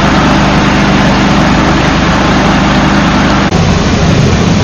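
A large engine running steadily under a loud, dense rushing noise, with an abrupt cut about three and a half seconds in to a similar engine-and-rush sound.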